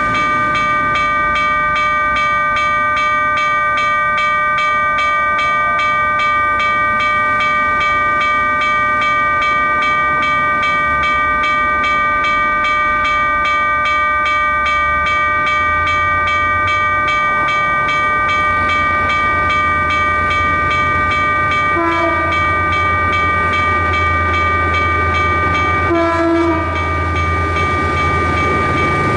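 A level-crossing warning bell rings rapidly and without a break. Under it, the EMD G12W diesel locomotive's engine grows louder from about halfway through as it pulls its train toward the listener. The locomotive gives two short horn toots, about three-quarters of the way in and again four seconds later.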